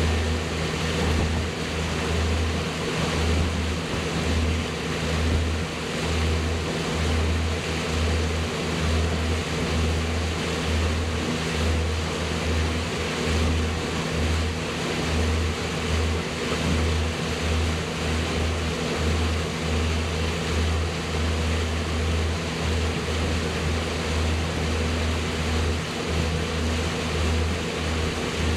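Motorboat engine running steadily under way, a constant low hum over the rush of water and wind.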